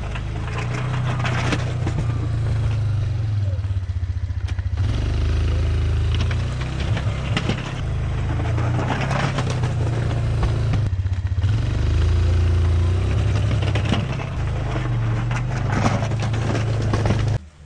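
2007 Yamaha Kodiak ATV engine running under load, its revs rising and falling as its Warn plow blade pushes deep snow, with rough scraping and crunching of the snow over the engine. The sound cuts off abruptly near the end.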